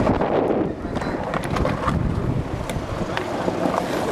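Skateboard wheels rolling over rough concrete: a steady low rumble with a few light clicks from cracks in the pavement, with wind buffeting the microphone.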